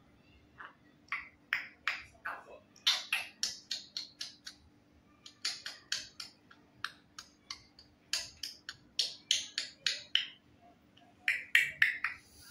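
African grey parrot making a rapid string of short, sharp clicks and chirps in clusters of several, with short pauses between clusters. A faint steady hum lies underneath.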